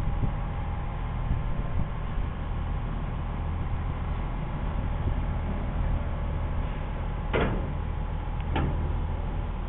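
Steady low engine rumble as a small van drives down onto a car ferry's ramp. About seven seconds in come two clanks, a little over a second apart, as its front and then rear wheels cross onto the ramp.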